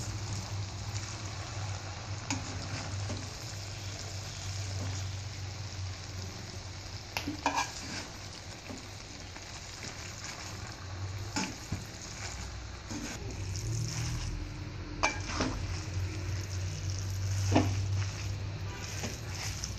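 Noodles being stir-fried in a metal wok: a steady sizzle with the spatula stirring and scraping, and a few sharp knocks of the spatula against the wok, over a steady low hum.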